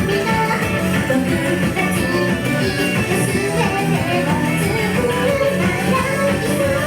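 Japanese idol pop song performed live: a female singer over an upbeat, rock-styled backing track.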